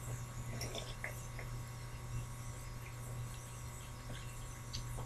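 Quiet room tone with a steady low electrical hum and a few faint small clicks.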